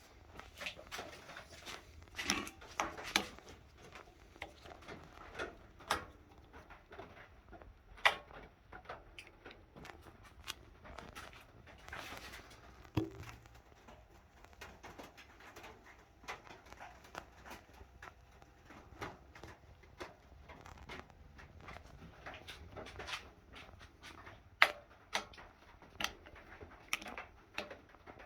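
Irregular clicks and light knocks of hands working at a mini lathe that is not running, with no steady motor sound.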